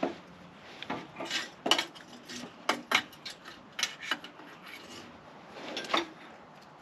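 Hard metal objects clinking and clattering as they are handled, about a dozen irregular sharp clanks and short rattles.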